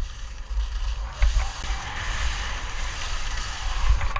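Skis sliding and scraping over packed snow at speed, with wind buffeting the action camera's microphone as a low rumble. The hiss of the skis on the snow grows louder about a second in.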